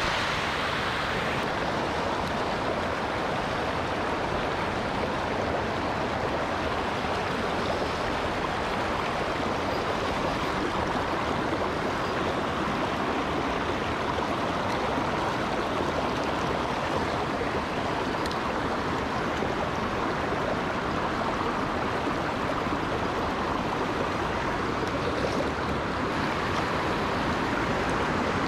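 Water pouring over a low concrete weir: a steady rushing splash that holds an even level throughout.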